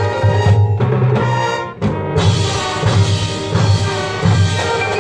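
High school band playing: sustained wind chords over drums and percussion, with a brief break about two seconds in before the band comes back in.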